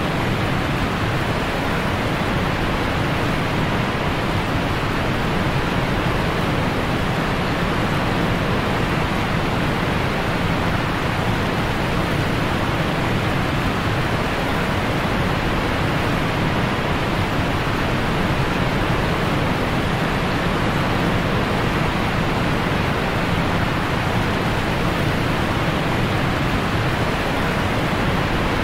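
Waterfall rushing, a loud, unbroken roar of falling water.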